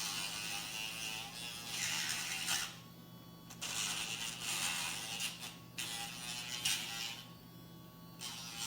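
Casfuy electric dog nail grinder running on a dog's claws. A steady motor hum runs underneath, and the high grinding noise comes in stretches of one to two seconds with short breaks, as the bit is pressed to a nail and lifted off.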